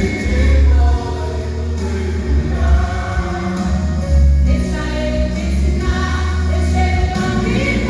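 A group of worship singers sings a gospel song over instrumental accompaniment with a heavy bass line.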